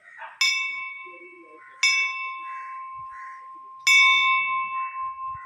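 A bell struck three times, about a second and a half to two seconds apart, each strike ringing on with a clear, steady tone that slowly fades.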